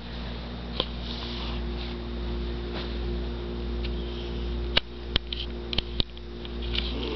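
Cat snoring in its sleep: slow breaths that swell and fade over a steady low hum, with a few sharp clicks about two-thirds of the way in.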